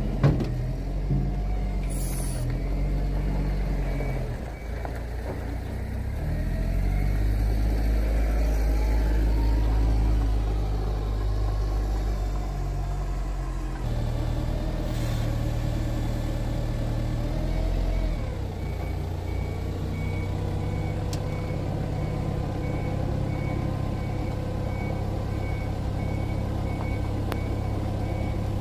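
Semi truck's diesel engine running at idle, its pitch shifting a few times, with a sharp knock right at the start and two short hisses of air. A faint steady beeping repeats through the last ten seconds.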